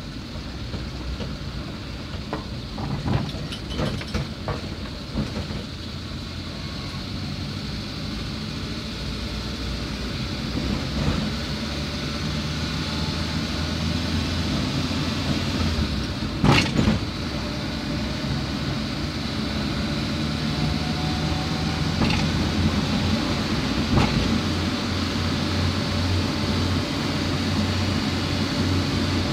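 Engine hum and tyre noise of a vehicle driving across a steel truss bridge, heard from on board, slowly getting louder. A few sharp knocks cut through it, the loudest about two-thirds of the way in.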